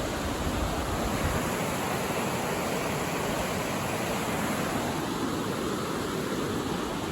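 Steady rushing of water pouring down a dam spillway.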